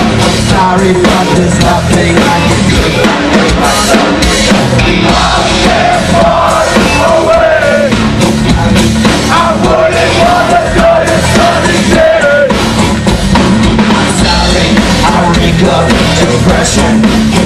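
A live rock band playing loudly: bass guitar, drums and a singer's voice over them, heard from the audience. A sung melody line stands out through the middle of the stretch.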